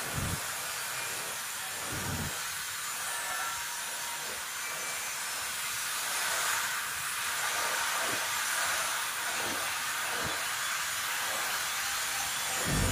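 Steady background hiss of room noise, with a few soft low knocks now and then.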